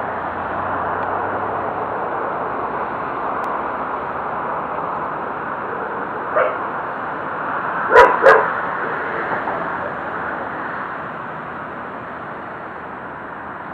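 A dog barks twice in quick succession a little past halfway, the loudest sound here, with a fainter short sound about a second and a half before, all over a steady background hiss.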